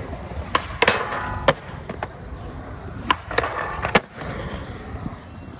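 Skateboard on concrete: wheels rolling with about six sharp clacks of the board hitting the ground, three in the first second and a half and three more between about three and four seconds in.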